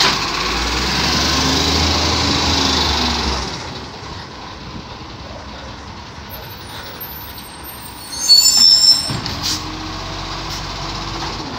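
Side-loading garbage truck's diesel engine running loud for about the first three and a half seconds, then dropping to a quieter steady drone as the truck pulls away. About eight seconds in, a brief loud high-pitched squeal with hiss as the truck brakes.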